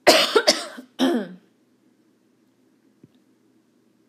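A person clearing their throat: two loud rough bursts in the first second and a half, the second trailing off lower. A faint click follows about three seconds in.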